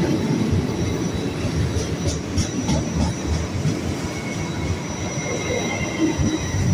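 A TER regional electric train rolling past close by: a steady rumble of wheels on the rails, with faint high tones above it.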